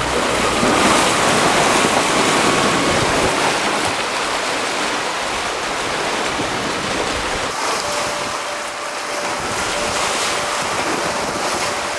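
Wind buffeting the microphone and water rushing and splashing past the hulls of a sailing catamaran under way, a loud, steady noise with no engine.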